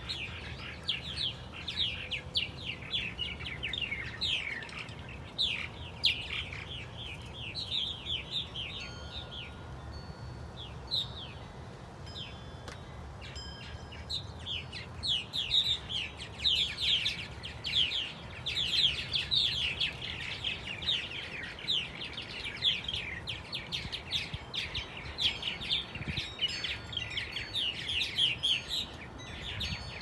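A flock of purple martins chirping and chattering around their gourd houses: many short, quickly falling chirps overlapping, busiest at the start and again through the second half, with a brief lull in between.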